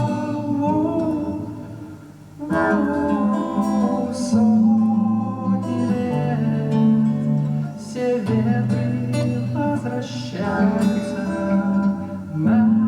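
Acoustic guitar strumming chords in an instrumental passage of a song, the chords changing about every two seconds.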